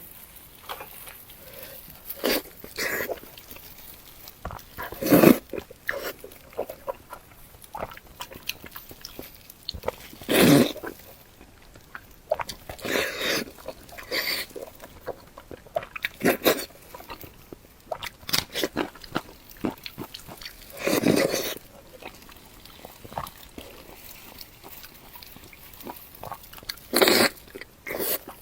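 Close-miked wet chewing, biting and smacking mouth sounds of a person eating fatty pork, in irregular bursts with several louder ones spread through.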